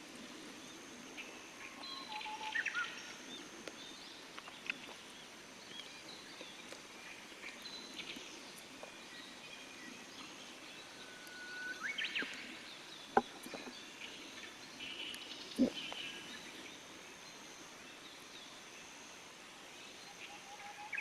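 Wild birds singing and chirping, short whistled phrases and calls scattered throughout over a faint high steady whine that comes and goes. Two sharp clicks sound a couple of seconds apart in the middle.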